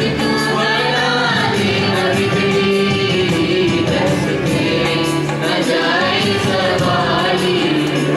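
A group of students singing a song together into microphones, over instrumental accompaniment with a steady beat.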